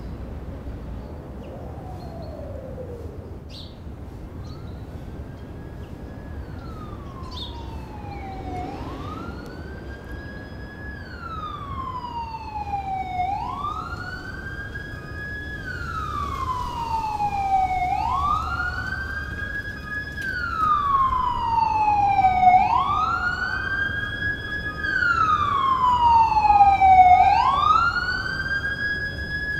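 Siren wailing, its pitch rising quickly and falling more slowly about every four and a half seconds. It fades in about eight seconds in and grows steadily louder as it approaches.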